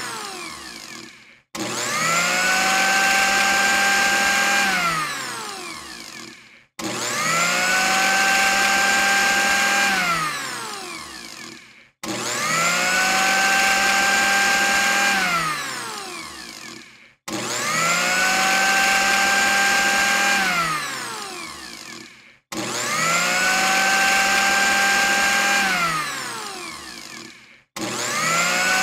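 Electric blender motor switched on and off again and again. Each time it whines up to speed within half a second, runs steadily for about three seconds, then winds down with falling pitch to a stop, about every five seconds.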